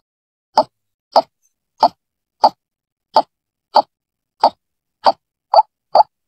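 White-breasted waterhen (ruak-ruak) calling: a series of short, sharp notes, about ten in all, at first roughly every two-thirds of a second and coming faster near the end.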